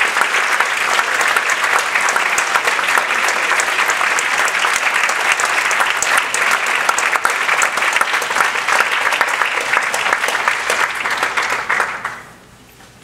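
Audience applauding, a dense steady clapping that dies away quickly near the end.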